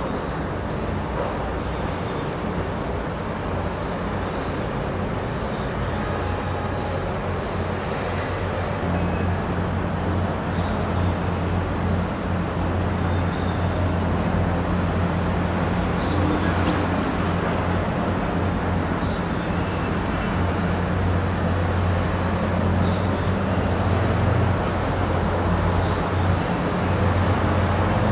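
Steady low engine drone over a constant outdoor rumble like distant traffic. The drone grows louder about a third of the way in and holds.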